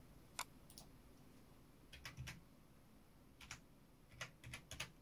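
Faint computer keyboard keystrokes: about ten short clicks at an uneven pace, several close together near the end, as a number is typed in.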